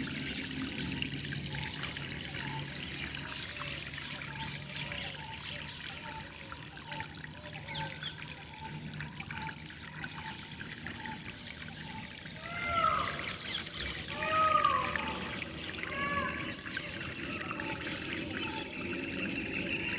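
Water trickling and flowing steadily, with birds calling over it: a quick run of short repeated calls through the first half, then a few louder arching calls past the middle.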